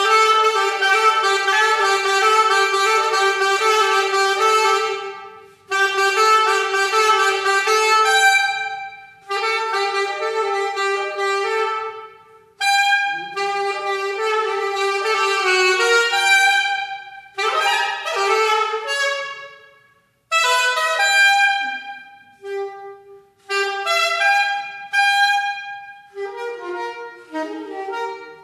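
Saxophone playing unaccompanied in phrases of a few seconds with short breaks between them: long held notes at first, then shorter, more broken phrases from about halfway.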